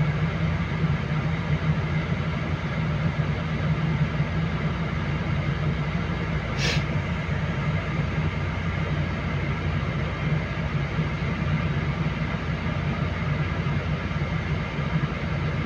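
Heavy diesel engine running steadily with a deep hum, heard from inside a vehicle cab, as a Volvo crawler excavator inches up a trailer ramp under power. A brief hiss cuts in about seven seconds in.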